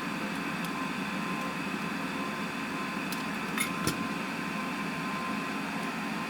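Steady fan-like hum of background noise, with a faint constant tone, and a few faint light clicks about three to four seconds in.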